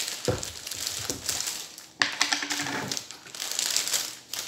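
Plastic bag crinkling and rustling as it is handled and pulled off a jar, with a sharp click about two seconds in.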